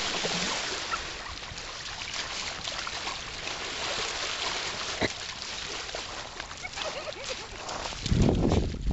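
A dog splashing and wading through shallow water at the shoreline: a steady wash of water noise with a few sharper splashes, and a louder low rumble near the end.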